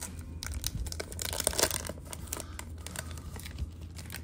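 Foil wrapper of a Topps baseball card pack being torn and peeled open by hand: the metallic wrapper crinkles and tears in quick, irregular crackles, loudest about a second and a half in.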